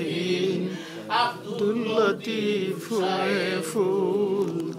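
Unaccompanied male voice singing a Bengali Islamic devotional song, with long wavering, ornamented notes over a steady low held tone.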